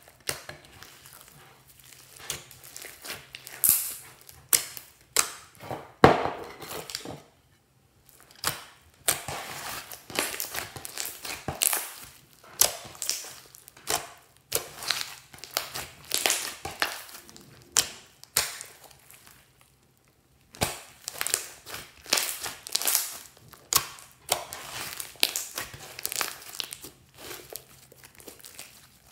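Hands kneading, stretching and folding fluffy pink slime packed with foam beads: a dense, irregular run of sticky crackles and pops. There are two short silent breaks.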